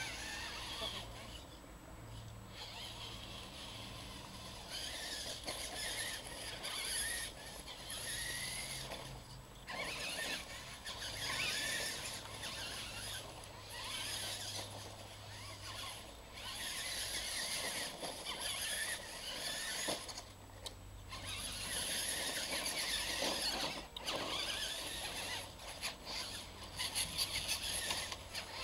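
Radio-controlled monster trucks' motors and gearboxes whining in on-and-off bursts as they accelerate, drive over the dirt ramps and stop, with short pauses between runs.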